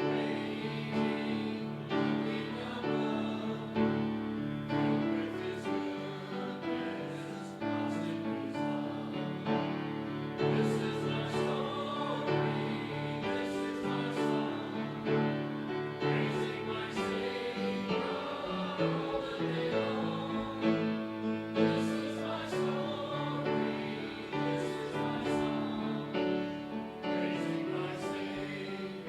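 Church music: voices singing with instrumental accompaniment, held notes changing steadily throughout.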